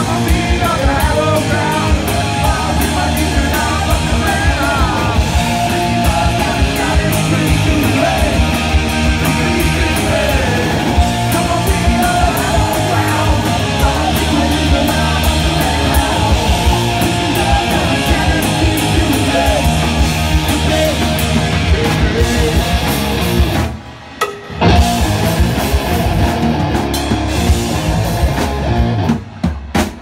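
Live rock band playing loud: distorted electric guitars and a drum kit, with a male singer. The band cuts out for a moment twice, once about two-thirds of the way through and again just before the end.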